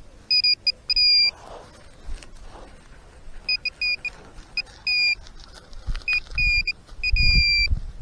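Metal-detecting pinpointer beeping on a buried target: a run of short, high electronic beeps with some held longer, repeating in clusters. Low thumps come in near the end.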